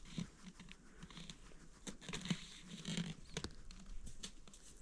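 Scattered rustling with small irregular clicks and light knocks, the sound of close handling of clothing and gear.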